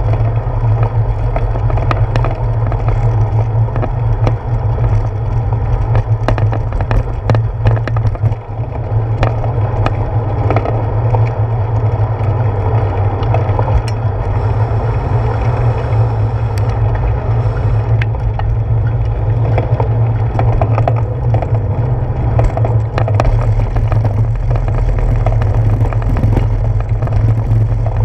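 Bicycle rolling over a brick-paved street, heard through a handlebar-mounted camera: a steady low rumble with frequent small clicks and rattles from the bumpy pavers.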